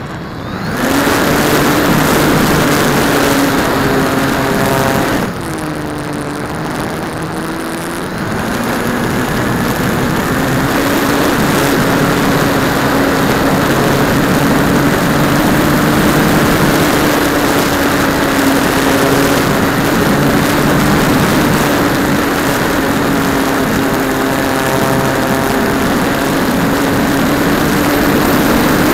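Brushless electric motor and propeller of a Great Planes Electrifly Super Sportster EP foam RC airplane running in flight: a steady pitched whine over rushing air on the onboard camera. The throttle comes back up just after the start, then eases off for a few seconds about five seconds in, with the pitch dipping, before returning to full.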